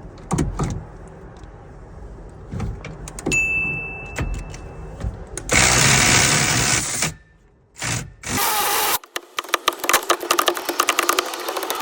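Scattered knocks and clatter, then an electric ratchet with an 11/16 socket running on a seat belt bolt: a burst of about a second and a half, and after a short pause a longer run of about four seconds with rapid, even clicking.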